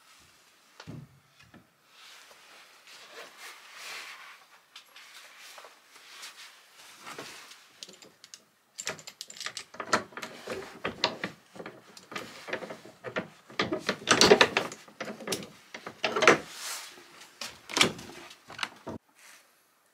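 Quiet rustling, then a run of metal clicks, rattles and knocks as a padlock and hasp on an old wooden plank door are unlocked, and the door is pulled open near the end.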